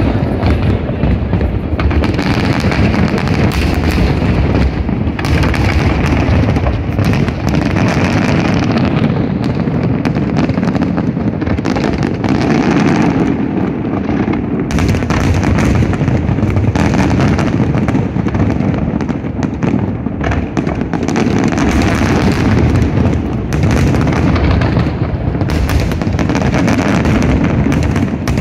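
Aerial fireworks bursting in a dense, unbroken barrage of booms and crackles, the show's finale.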